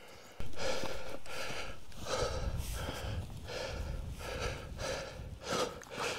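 A hiker's hard, rapid breathing close to the microphone, about two breaths a second, from the exertion of a steep uphill climb. Wind rumbles on the microphone from about half a second in.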